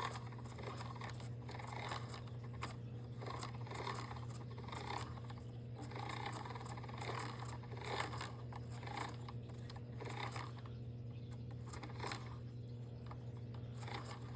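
Handling noises from a robot vacuum being turned over and fiddled with: scattered small plastic clicks, taps and scrapes over a steady low hum.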